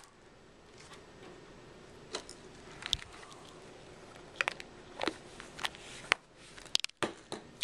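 Handling noise of a handheld camera being moved and brushed against fabric: faint rustling with a scattering of sharp clicks and taps.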